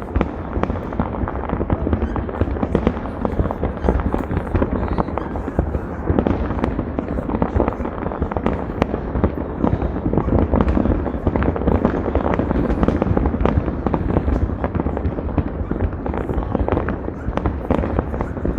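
Dense, continuous barrage of fireworks and firecrackers: many overlapping bangs and crackles with no let-up.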